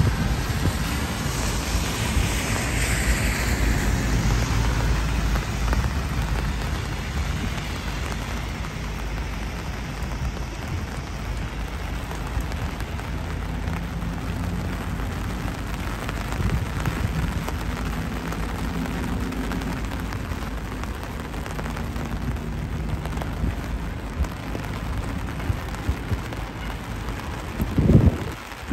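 Steady rain falling, with a faint low hum underneath and a brief low thump near the end.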